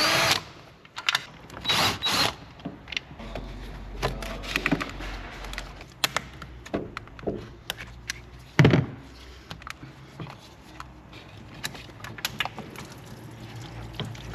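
Hand tools and engine parts being handled: scattered clicks, knocks and scrapes, with two louder scraping rustles early on and one loud thump about nine seconds in.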